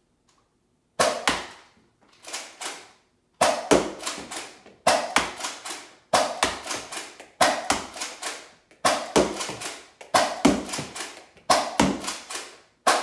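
A Nerf Rival Takedown pump-action foam-ball blaster is pumped and fired again and again. Groups of sharp clacks and pops come about once a second or a little faster, starting about a second in.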